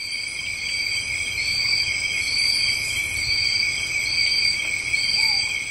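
Crickets chirping at night: a steady high trill, with a higher pulsing chirp that repeats about once a second.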